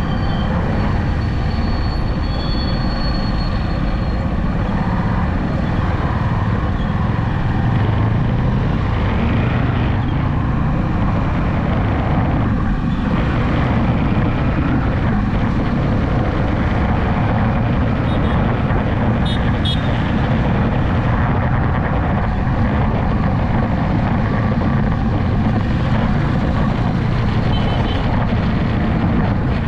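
Steady road noise of a vehicle cruising along a highway: a low, even engine hum with wind rush over the microphone.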